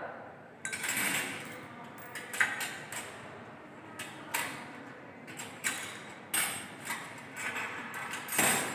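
A string of irregular clicks and light knocks from metal forceps and tongs being picked up, worked and set down on a lab bench among small dishes. The loudest comes near the end.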